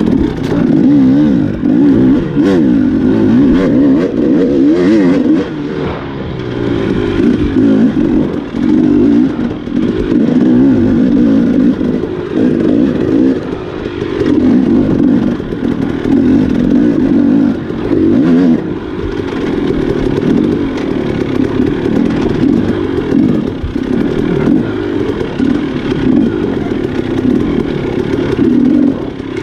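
Enduro dirt bike engine ridden on a trail, its revs rising and falling continually as the rider works the throttle, with a few short knocks.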